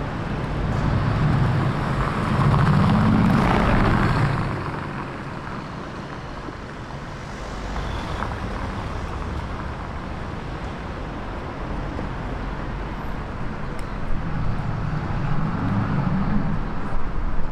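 Road traffic: a car's engine grows louder and passes about one to four seconds in, then steady traffic noise, with another engine building and passing near the end.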